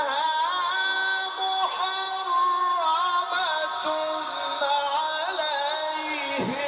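Male Quran reciter chanting in the melodic mujawwad style, drawing out long ornamented notes that bend and wave in pitch, heard through a microphone.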